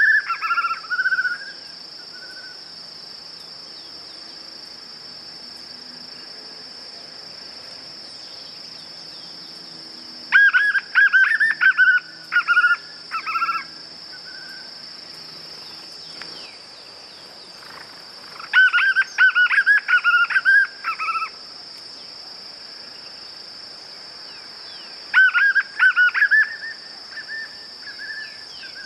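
White-eared puffbird (João-bobo) singing. The end of one phrase comes at the start, then three more phrases follow, each a few seconds of fast repeated whistled notes, with pauses of several seconds between them. A steady high insect drone runs underneath.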